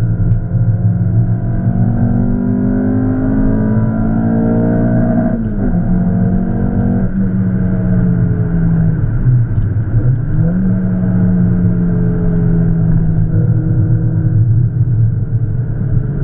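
Peugeot 306's 1.8 XU7JP4 four-cylinder engine on individual throttle bodies, heard from inside the cabin at full track pace. The revs climb steadily for about five seconds, fall sharply, hold and ease off, dip briefly about ten seconds in, then pick up again.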